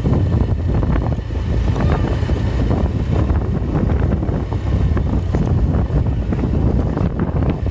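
Wind buffeting the microphone over a loud, steady low vehicle rumble.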